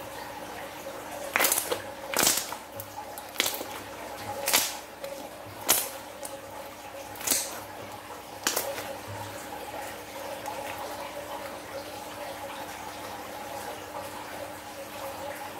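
Slime being squeezed and folded by hand, giving seven sharp wet pops in the first nine seconds, then quieter squishing as it is stretched out. A steady hum runs underneath.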